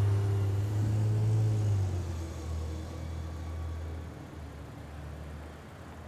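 Cars passing on a city street. A low engine drone comes in suddenly, is loudest for about the first two seconds, then fades as the vehicle moves off, leaving softer traffic sound.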